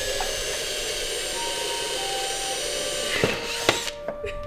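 Power drill running steadily at full speed, drilling a hole in the diffuser's mounting plate, then stopping about three seconds in, followed by a couple of sharp knocks.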